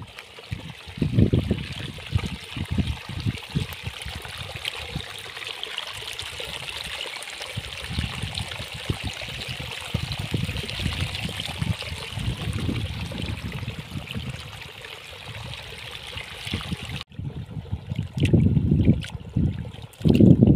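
Muddy water trickling and running down a small earthen channel, a steady splashing hiss with uneven low thumps. Near the end it cuts off abruptly to quieter sloshing as hands work in a shallow muddy puddle.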